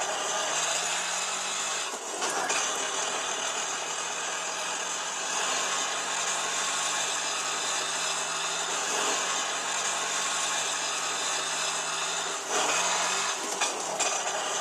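A small motor running with a steady whirring hum. Its pitch sweeps up briefly about a second in and again near the end.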